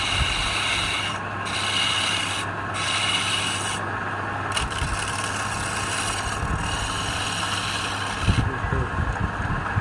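Wood lathe running with a steady hum while a tool or sandpaper rubs against the spinning workpiece. The scraping hiss breaks off briefly several times as the contact is lifted.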